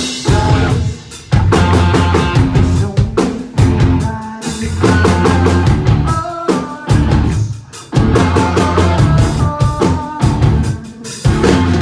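Rock band playing live: a heavy drum kit with kick and snare driving a loud, bass-heavy band. The band plays in a stop-start pattern with several short breaks.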